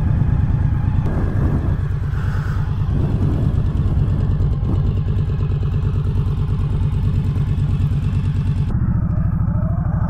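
2020 Indian Scout Bobber Sixty's 999 cc V-twin idling with a steady, even exhaust pulse. About 9 s in the sound changes abruptly to the bike under way, the engine note rising as it accelerates.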